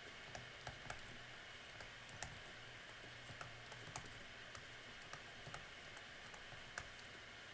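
Faint, irregular light tapping clicks, a few each second, over a steady low hum and hiss.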